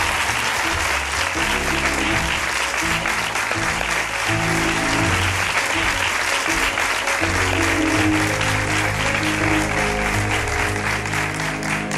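Studio audience applauding over the opening of a song, with held low notes from the music beneath the clapping.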